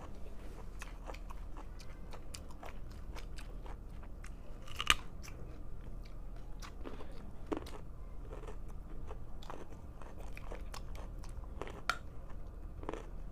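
Raw carrots being bitten and chewed: irregular crisp crunches throughout, the sharpest about five seconds in. The carrots are very hard.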